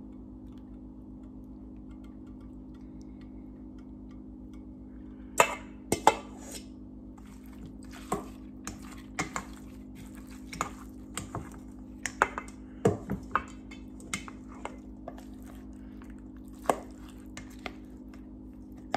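Scattered sharp clinks and knocks of utensils against dishes, over a steady low hum, starting about five seconds in.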